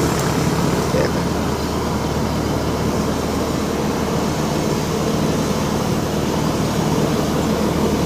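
Kubota DC60 combine harvester's diesel engine running steadily as the tracked machine drives down an embankment.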